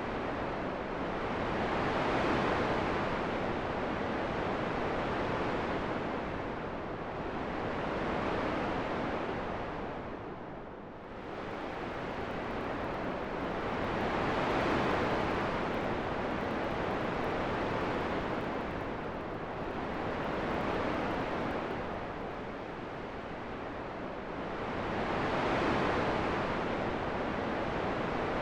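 Wind blowing in a steady rush that swells and eases in slow gusts, dropping away briefly about eleven seconds in.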